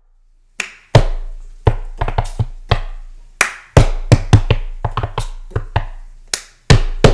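Percussive title-card music: a run of sharp drum hits in an uneven rhythm, each ringing briefly, over a low bass drone. It starts about half a second in.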